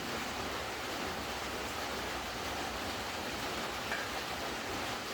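Steady rain falling, an even hiss without letup.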